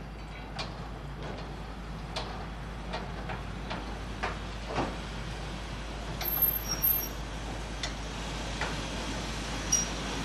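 A freight wagon rolling slowly along yard track, with irregular clicks and knocks from its wheels and running gear. There are two short high metallic squeals past the middle and another near the end, and the rumble grows slowly louder as the wagon approaches.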